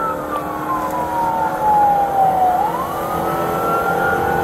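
Police car siren in wail mode, heard from inside the patrol car's cabin: one slow fall in pitch over about two and a half seconds, then a rise back up.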